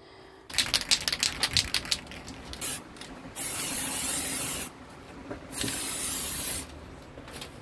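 Aerosol can of enamel primer: about two seconds of rapid clicking as the can is shaken and its mixing ball rattles, then spray paint hissing from the nozzle, in one short burst followed by two longer sprays of about a second each.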